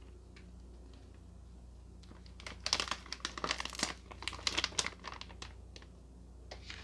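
Plastic packaging and grocery bags crinkling and rustling as groceries are rummaged through by hand. The crackling comes in a dense burst starting about two and a half seconds in and lasting about three seconds.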